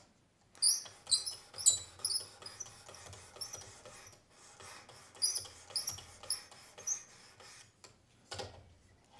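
A 600-grit sharpening plate on a Work Sharp Precision Adjust sharpener is stroked back and forth along a Gerber knife's edge: about a dozen short rasping strokes, each a little squeaky, with a brief pause about four seconds in.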